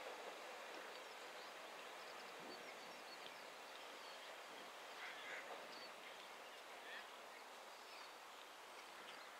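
Scattered faint bird chirps and calls over a steady low hiss.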